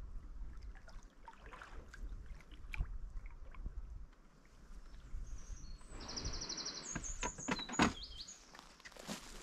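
Paddle strokes and water splashing as an Ally folding canoe comes in to the shore, over a low wind rumble. About six seconds in, a hissing scrape sets in as its fabric-skinned hull runs up onto the sand, followed by several sharp knocks as it grounds.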